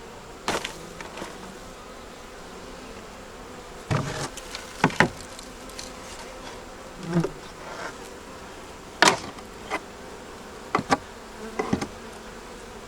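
Honey bees buzzing steadily around an open hive, with about eight sharp knocks and taps of hive parts being handled, the loudest near the middle.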